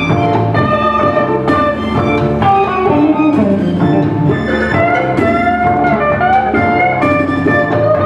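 A small band playing live together: electric guitar, saxophone, trumpet and drums, with long held notes that slide up and down in pitch over steady percussion.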